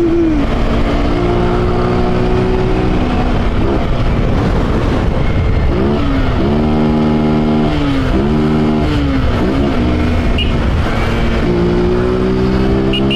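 Honda CG 150 Titan's carbureted single-cylinder four-stroke engine, run with no air filter or intake hose, pulling under way: its pitch climbs and holds, drops sharply twice in the middle, then climbs steadily again near the end as the bike is revved through the gears.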